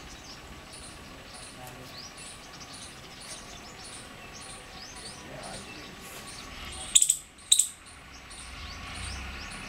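Birds calling in the open air: a high chirp repeated steadily, a bit more than once a second, with fainter chirps around it. About seven seconds in come two short, loud, shrill calls half a second apart.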